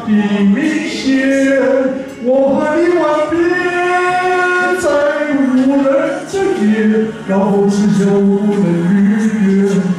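Harmonica played cupped against a handheld microphone: a melody of held notes and chords that step from note to note, with no words.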